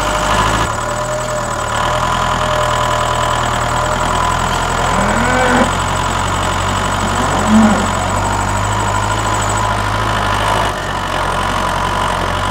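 Diesel tractor engine running steadily. Two short pitched calls sound over it, one about five seconds in and a louder, briefer one a couple of seconds later.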